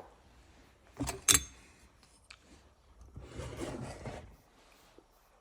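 Chainsaw file and metal muffler gasket being handled at a vise: two sharp metallic clicks about a second in, then a short scraping sound a couple of seconds later.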